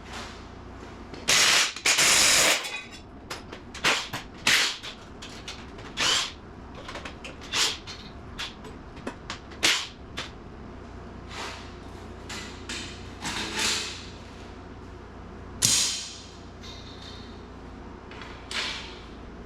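Wrench and socket work on the exhaust header bolts of a Ford 302 V8: irregular sharp clicks and metal clanks, with two loud harsh bursts a little over a second in.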